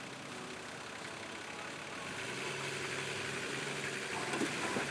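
Four-wheel-drive competition vehicle's engine idling, picking up a little about halfway through, with a sharp knock at the very end.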